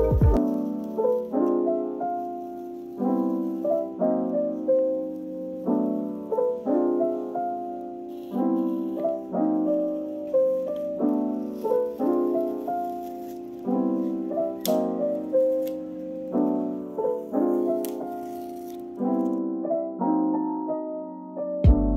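Background music: a gentle piano piece with chords struck about every one and a half seconds under a simple melody. It breaks off shortly before the end, and a louder track with a beat cuts in.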